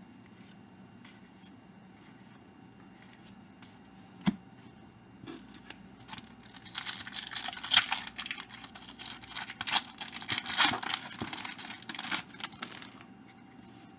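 A trading-card pack wrapper being torn open and crinkled: a dense rustling and tearing from about five seconds in until near the end, after a single sharp tap about four seconds in.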